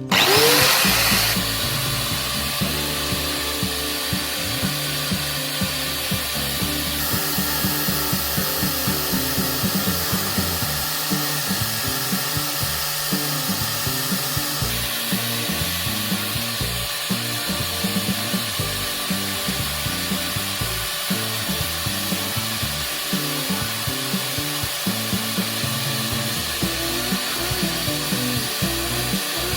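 A power tool's motor spinning up with a rising whine, then running steadily under load with a continuous scraping, grinding noise.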